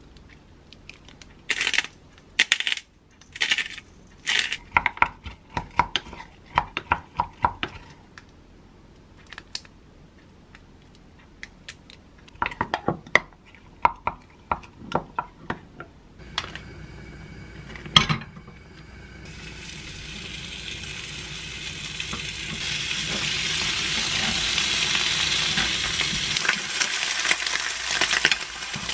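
A wooden spoon tapping and scraping against a glass measuring beaker as a mayonnaise sauce is stirred, in two bouts of quick clicks. About two-thirds through there is one sharp knock, then slices of meat, likely smoked duck, sizzle in a square nonstick pan on a gas burner, the sizzle growing steadily louder.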